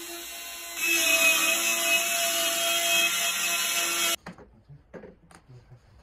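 Compact router on a circle-cutting jig cutting a circular groove in walnut plywood: a steady motor whine that grows much louder about a second in, then cuts off abruptly. Faint knocks and rubbing of wood panels being handled follow.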